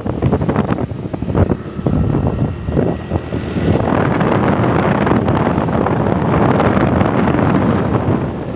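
Loud rushing wind noise on the microphone of a phone carried on a moving motorcycle, mixed with road noise. It is gusty and uneven for the first few seconds, then steadier and fuller from about four seconds in.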